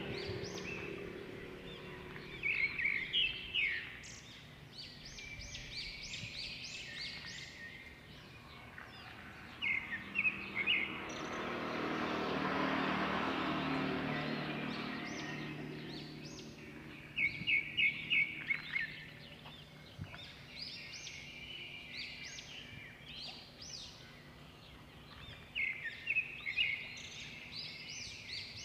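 Birds chirping in short, quick runs of high notes every several seconds over a steady outdoor background, with a broad swell of noise that rises and fades in the middle.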